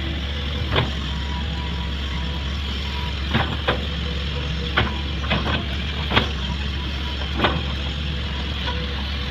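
Excavator diesel engine running steadily at work, with about eight sharp metallic knocks and clanks from the working excavator spread through.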